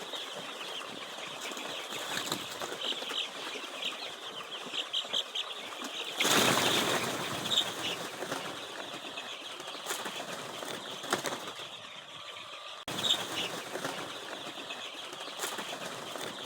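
A flock of 15-day-old layer chicks peeping, with many short high chirps over a steady rustling haze. A louder burst of rustling noise about six seconds in.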